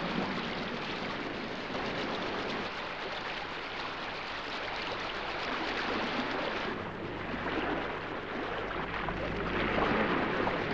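Steady rush of sea water and wind, like wash along sailing yachts' hulls, swelling a little around the middle and again near the end.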